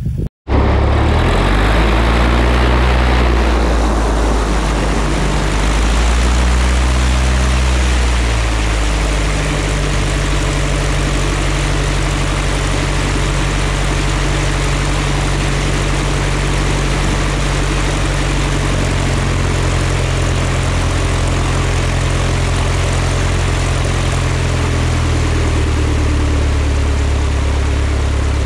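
Piper Pacer's piston engine and propeller running close by on the ground. The engine is briefly revved up and back down twice in the first eight seconds, then runs steadily.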